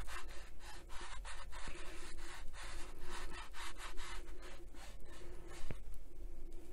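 Quick repeated rubbing strokes, about three a second, of a hand working black wax shoe polish into the scuffed black case of a Roberts RIC1 radio.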